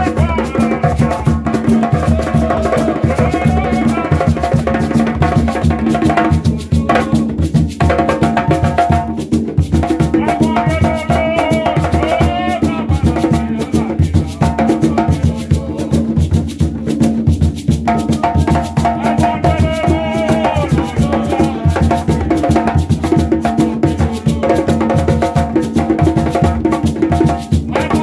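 Gwo ka music: ka hand drums played in a fast, steady rhythm with a calabash shaker rattling along. A man sings into a microphone in phrases that come and go over the drumming.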